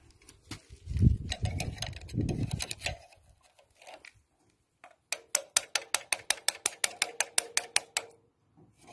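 Lister SR3 three-cylinder diesel being turned over on a start attempt: a low rumble with a few knocks, then a rapid, even run of sharp mechanical clicks, about seven a second for some three seconds, over a steady tone.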